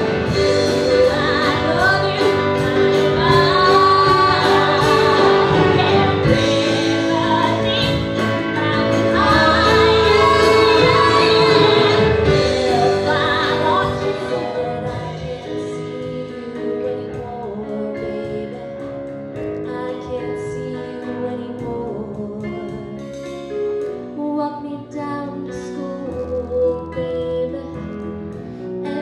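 A 1960s-style song sung by a female voice with backing accompaniment. It is loud and full for about the first half, then drops to a quieter, sparser passage.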